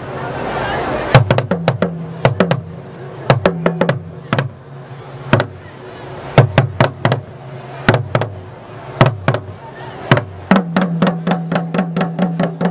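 A pair of atumpan talking drums struck with curved wooden sticks. They play phrases of sharp, ringing strokes on two low pitches, split by short pauses, and finish in a fast run of about seven strokes a second near the end.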